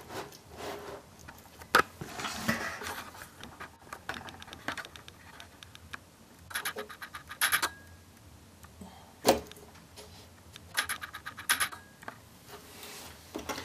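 Hand handling a motherboard in its cardboard box: scattered scratching and rubbing with sharp clicks, the loudest single clicks about two seconds in and about nine seconds in, and quick runs of clicks around seven and eleven seconds in.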